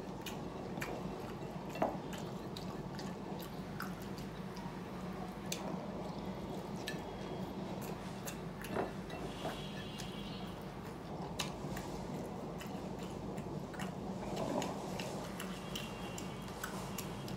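Close-up eating sounds: a person chewing rice and fish, with wet mouth clicks and squishes scattered throughout and a few louder smacks. A steady low hum runs underneath.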